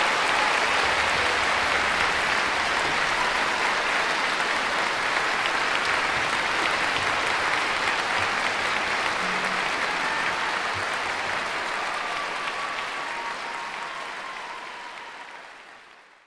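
Steady concert applause from many people clapping, which gradually fades out over the last few seconds.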